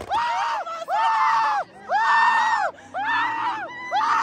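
Car tyres squealing on pavement in a run of about six loud, evenly spaced bursts, each about half a second long and rising then falling in pitch, as a car drifts in tight circles.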